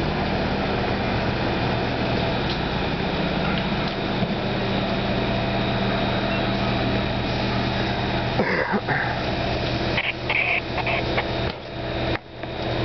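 Engine running steadily at idle, a constant low hum under a noisy haze, briefly broken about eight and a half seconds in.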